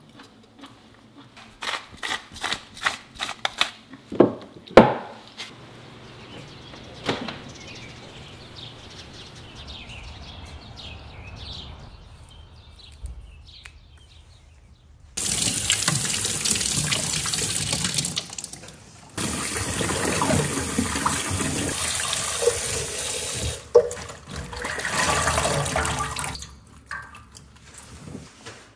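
Tap water running hard into a stainless-steel sink basin while napa cabbage leaves are washed, breaking off once briefly before it stops. Earlier, a quick run of light clicks and one sharp knock.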